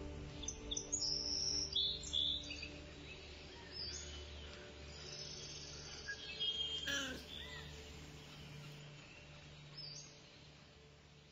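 Ambient soundtrack: a soft sustained drone with bird chirps and other nature sounds layered over it, one falling call about seven seconds in, fading out near the end.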